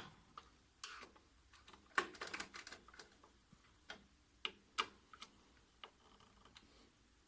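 Faint, irregular small clicks and taps of hand work on copier motor parts, a cluster about two seconds in and a few sharp single clicks later, as from a screwdriver and small screws.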